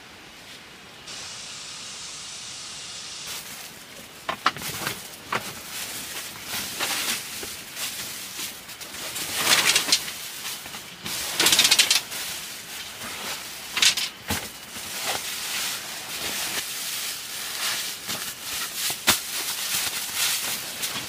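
Foam sleeping pad rustling and crinkling in irregular bursts as it is unrolled and handled on a bamboo slat floor, with the loudest crinkles about halfway through.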